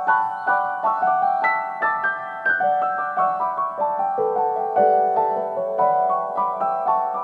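Background music: a piano-like keyboard playing a melody of separate notes, each struck and fading, several a second.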